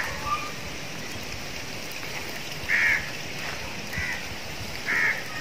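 A bird calling: short calls, one right at the start and three more from about halfway through, roughly a second apart, over steady background noise.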